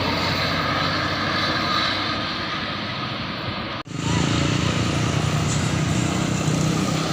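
Road traffic with a bus's diesel engine running close by. The sound cuts out abruptly about four seconds in, then resumes with a louder, lower engine note.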